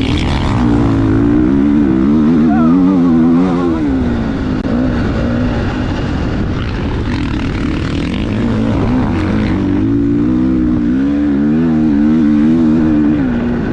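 GasGas MC 450F motocross bike's single-cylinder four-stroke engine running under riding load, its revs rising and falling repeatedly as the throttle is worked, with a big climb a second or so in and another near the end.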